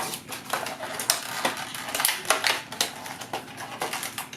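Unboxing handling noise: plastic construction-toy pieces and packaging being handled, with rapid irregular clicks, rattles and rustles.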